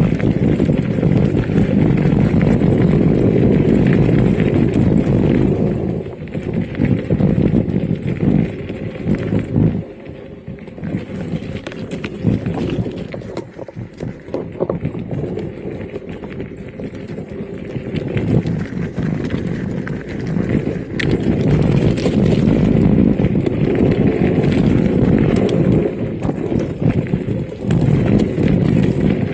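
Electric mountain bike riding over a rough trail: a steady low rumble with many small rattling knocks. It eases off for a while in the middle, then grows loud again.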